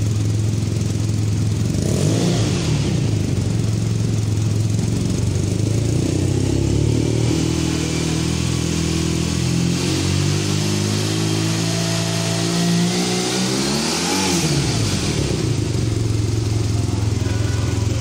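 BMW R nineT Scrambler's 1170 cc boxer twin idling through its twin stacked silencers. The throttle is blipped briefly about two seconds in. Later a longer rev climbs slowly for several seconds and drops back to idle about fifteen seconds in.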